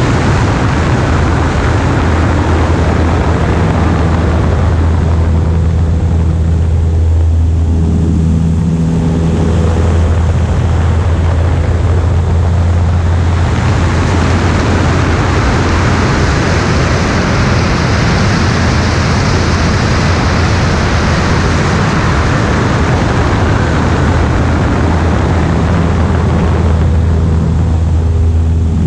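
Single-engine light aircraft in flight: the engine and propeller make a steady low drone under heavy wind rush over a wing-mounted microphone. The wind hiss grows brighter and louder about halfway through and eases near the end.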